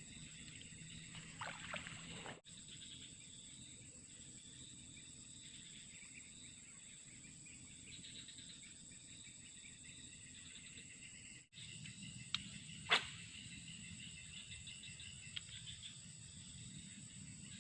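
Quiet outdoor ambience with insects chirping steadily, and a single sharp click about thirteen seconds in.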